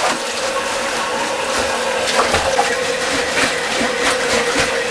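Rubber plunger pumped in a toilet bowl full of water: a run of quick sloshing splashes and squelches, over a faint steady tone.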